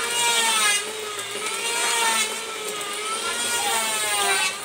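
A small engine running unevenly, its pitch dipping and rising roughly once a second.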